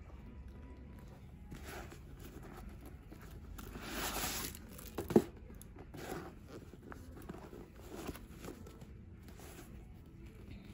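Rustling and crinkling as a new sneaker is handled and its paper stuffing is pulled out, with one sharp knock about five seconds in.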